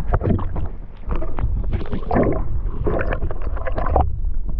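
Wind rumbling on the microphone over irregular water splashing and sloshing.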